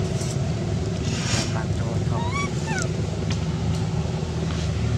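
A steady low rumble, with a few short high squeaky calls rising and falling in pitch about halfway through.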